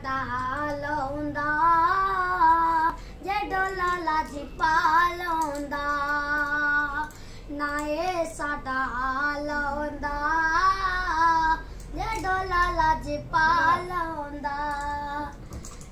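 A boy singing solo with no accompaniment, holding long notes with a wavering, ornamented pitch in phrases broken by short breaths.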